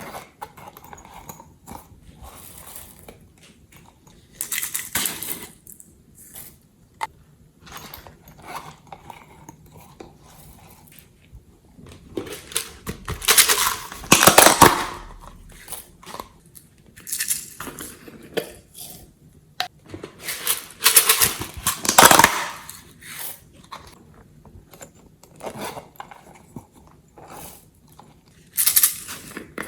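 Glossy slime being worked and squished by hand with items mixed in, heard as irregular bursts of sticky, clicky noise with short pauses between them. The loudest bursts come about 13 and 21 seconds in.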